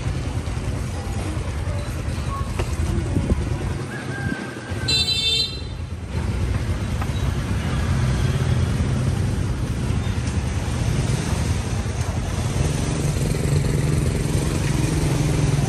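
Busy street traffic noise, a steady low rumble of motorbike and vehicle engines, with an engine growing louder over the last few seconds. A brief high-pitched beep sounds about five seconds in.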